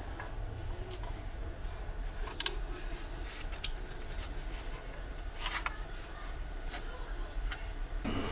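Scattered light clicks and rustling of something being handled, over a steady low rumble.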